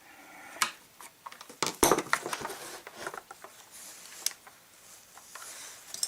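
Scattered small clicks, taps and rubbing of hands working a fuel line and primer bulb on a chainsaw's plastic housing, with a quick run of louder knocks about two seconds in.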